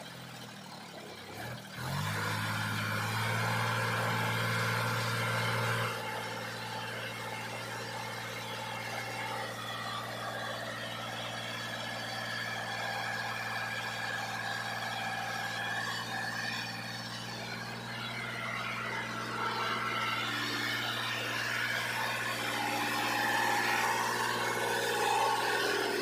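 Sonalika DI 35 tractor's diesel engine revving up about two seconds in, then running steadily while the tractor pulls its trailer through loose dirt. The engine eases back a little around six seconds in and picks up again near the end.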